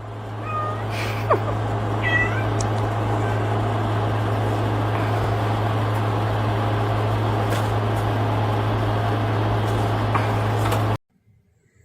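A steady low hum with a hiss, like a small motor running, with a few short cat meows over it in the first couple of seconds. The hum cuts off suddenly about eleven seconds in.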